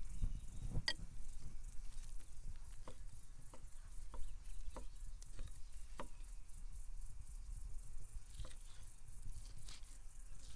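Chef's knife cutting meat into small cubes on a wooden butcher block: irregular short taps of the blade against the board, about one or two a second.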